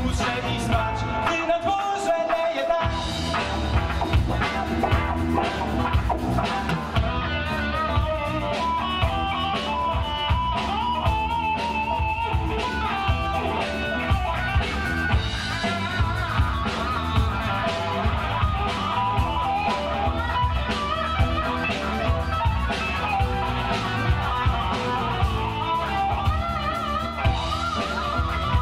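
Live blues-rock band playing a funk-blues song: electric guitars over a drum kit with a steady beat. The low end drops out for a couple of seconds near the start, then comes back in.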